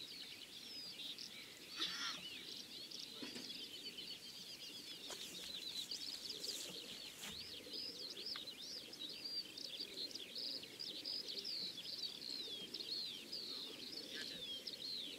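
Wild songbirds singing outdoors: a dense, unbroken run of short high chirps and twitters, with a few faint knocks.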